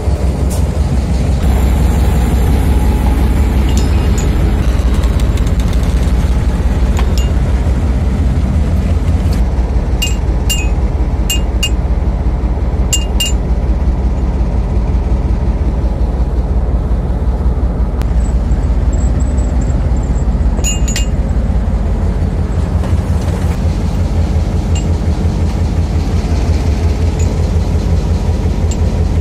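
Steady low rumble of a railway locomotive engine, laid on as a background track. A few light metallic clinks come through it, about a third of the way in and again past the middle, as the iron chisel is set against the steel rail.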